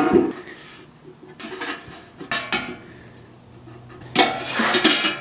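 Steel 50 cal ammo can being handled and turned over on a wooden workbench: metallic clanks and knocks, with a louder scraping clatter about four seconds in.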